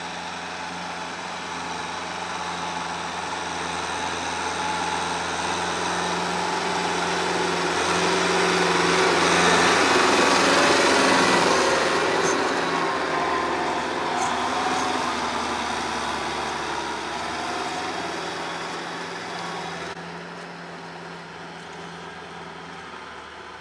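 Kubota L5018 tractor's diesel engine running steadily under load while it drives a rotary tiller through the soil. The sound swells as the tractor comes close, loudest about ten seconds in, then fades as it moves away.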